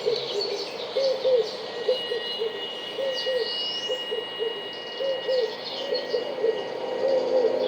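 Wild animal ambience: a caller repeating short, low hooting notes, many of them in pairs, over higher chirps and a steady high-pitched tone.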